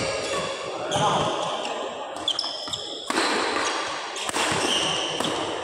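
Badminton doubles rally: sharp racket hits on the shuttlecock, a few seconds apart, with short high squeaks of players' shoes on the court mat and voices in the background.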